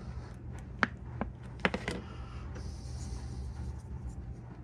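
Small sharp plastic clicks and taps, four of them in the first two seconds, from handling a clear plastic two-part epoxy blister tray and mixing stick, over a steady low hum.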